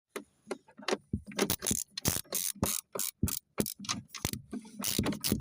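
A rapid, irregular run of mechanical clicks and rattles, several a second.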